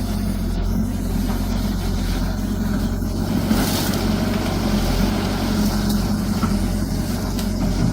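Excavator diesel engine running at a steady, even pitch.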